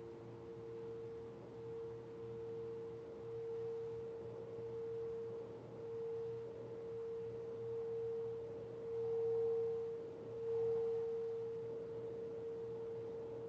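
Singing bowl held in a steady ringing tone that swells and eases again and again and is loudest near the end. A lower tone fades out in the first few seconds, and a higher tone joins for a few seconds past the middle.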